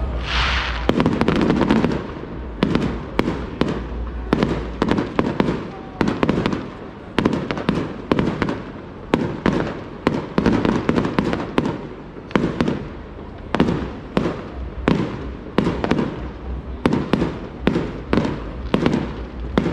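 Fireworks display: a fast, continuing series of sharp bangs, a few a second, with a hissing streak about half a second in.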